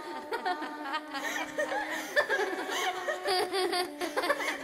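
Layered, overlapping laughter, many voices giggling and chuckling at once, over a steady low musical tone.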